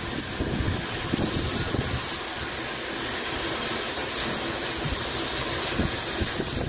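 Narrow-gauge steam locomotives standing at the platform, steam hissing steadily over a low, uneven rumble.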